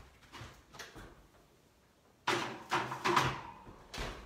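Kitchen oven door opened and shut as a baking sheet of cookie dough is put in. A loud metallic clatter about two seconds in, then a short thump near the end.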